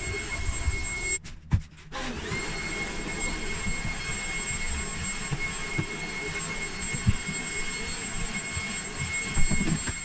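Beko VRT6221P cordless stick vacuum cleaner running on carpet: a steady motor whine with high fixed tones over rushing air. It cuts out for a moment about a second in, then whines back up to speed. A few low knocks come through, the loudest near the end.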